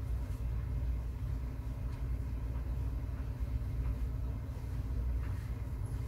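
Steady low rumble of background noise, with a few faint ticks.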